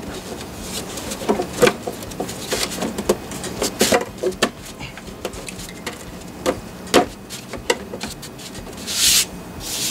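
Hard plastic engine-bay covers being pressed and snapped back into place: scattered clicks, knocks and rubbing of plastic on plastic, with a short rustling hiss near the end.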